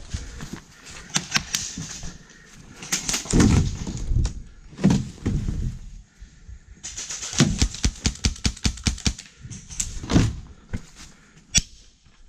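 Airsoft guns firing: scattered single shots, then a quick string of about six shots a second lasting a couple of seconds in the second half, with a few dull thumps in between.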